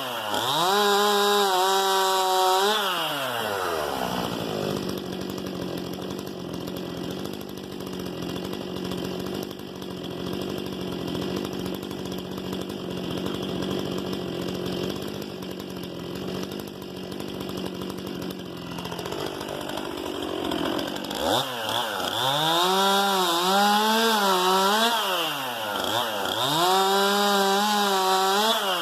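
STIHL MS 261 C-M two-stroke chainsaw at full throttle in a cut, its pitch wavering under load. About three seconds in it drops to a steady idle. Some twenty seconds in it revs up again and cuts, the pitch dipping and recovering repeatedly.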